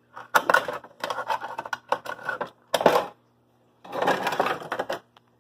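Fingerboard (miniature finger skateboard) rolling and scraping along toy skatepark ramps, with sharp clacks of the deck hitting the surface; the loudest clack comes about three seconds in, after which the rolling starts again.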